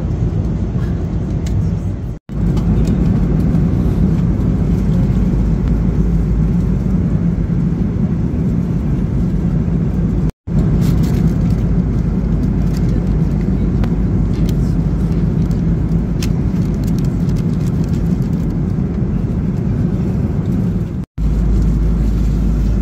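Steady airliner cabin noise of an Airbus A330-200 in cruise: a low, even rush of engines and airflow. It drops out abruptly three times, about two, ten and twenty-one seconds in.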